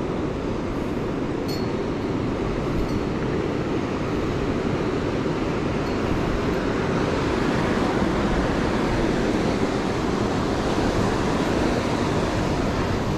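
Ocean surf breaking steadily on a beach, a continuous wash of noise.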